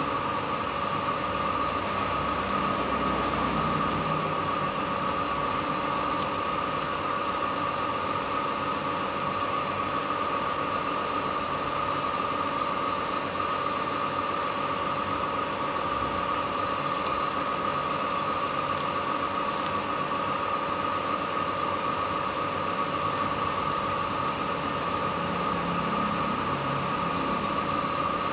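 Steady mechanical hum with a constant high whine over it, unchanging throughout.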